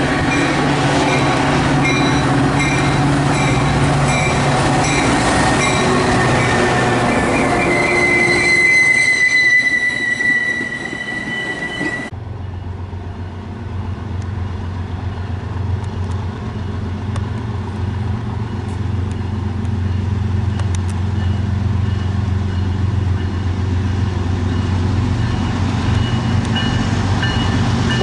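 A train passing on the rails: loud wheel-on-rail noise with high squealing tones from the wheels, one tone sliding slowly downward. About twelve seconds in the sound changes abruptly to a low, steady rumble.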